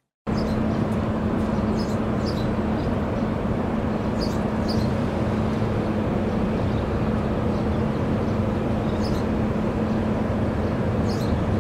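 A machine running steadily: an even hiss over a constant low hum, with a few faint high chirps.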